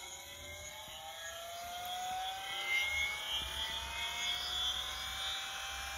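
Home-built pulse motor generator spinning up, its whine rising slowly and steadily in pitch as the rotor gathers speed toward full speed.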